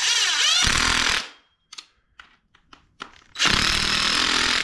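Cordless impact driver hammering Torx screws into the plastic housing of an Echo 2511 chainsaw. Two runs of about a second each: one at the start, another starting about three seconds in, with small clicks in between.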